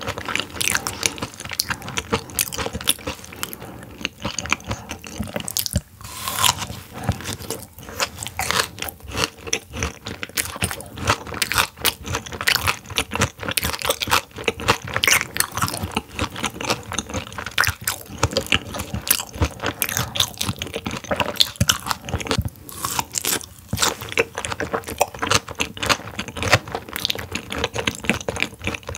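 Close-miked mouth sounds of chewing raw silver pomfret sashimi sliced whole with its bones, still partly frozen: a dense, continuous run of crunches and crackles with wet chewing.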